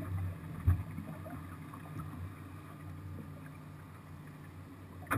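Boat's outboard motor idling with a low, steady hum. A single knock on the deck comes just under a second in.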